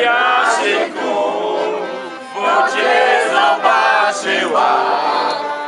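Several voices, men's among them, singing a song together to a piano accordion.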